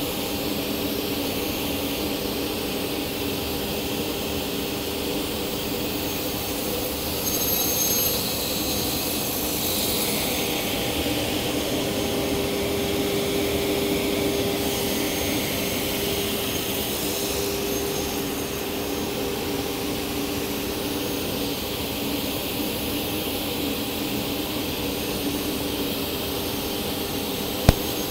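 Sliding table saw with a 100-tooth crosscut blade running steadily, its motor and spinning blade making a constant whine. The noise brightens briefly about seven seconds in and again for several seconds around the middle as the blade cuts through small pieces of wood.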